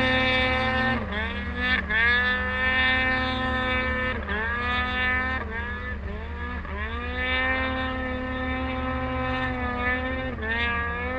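Snowmobile engine running up close, its pitch dropping and climbing back several times as the throttle is eased off and reapplied.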